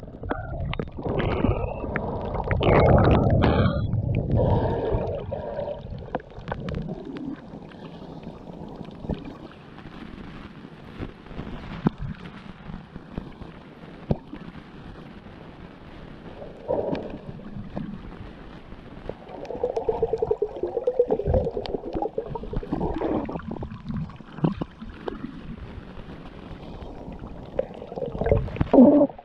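Muffled underwater sound from a camera held below the surface: water gurgling and sloshing, loudest in the first few seconds and again around twenty seconds in, with scattered faint clicks throughout.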